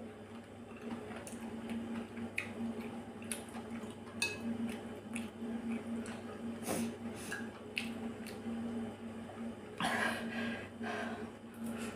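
Close-up wet chewing and mouth sounds of a person eating a saucy salmon and carrot salad, with scattered light clicks of metal chopsticks, over a steady low hum. A louder, brief sound near the end.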